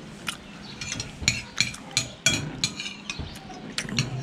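Metal spoon clinking and scraping against a ceramic plate, about ten short irregular clinks as porridge is scooped up.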